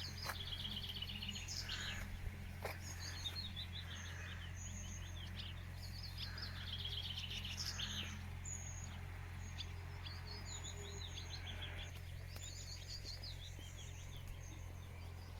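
Songbirds singing, short chirping and trilling phrases following one another every second or so, over a steady low hum.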